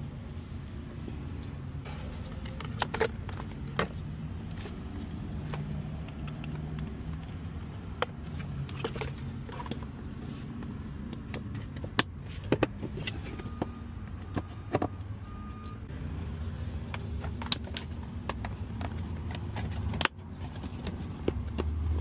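Plastic kick-panel and door-sill trim of a 2022 Toyota Sienna being handled and pressed by hand, giving scattered sharp clicks and snaps of plastic and trim clips over a steady low hum.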